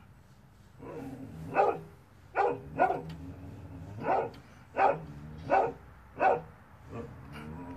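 A dog barking repeatedly, about eight short barks roughly two thirds of a second apart, starting a second and a half in, over a faint steady low hum.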